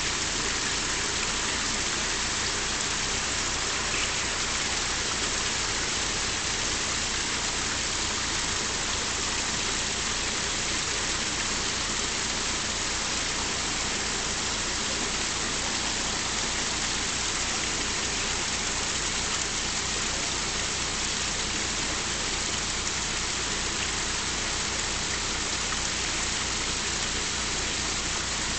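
Steady rushing of water pouring through the paddles of a canal lock as the chamber fills or drains around two narrowboats, with a low steady hum underneath.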